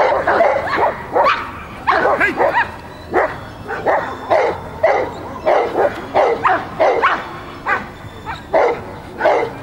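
Belgian Malinois barking over and over, about two barks a second, in the excited barking of protection work.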